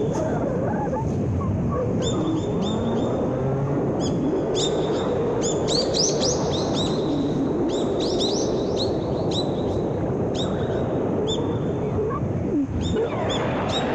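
Small birds chirping again and again in short, quick notes, over a steady low rush. Underneath runs the faint hum of a small electric RC plane's motor, slowly rising and falling in pitch.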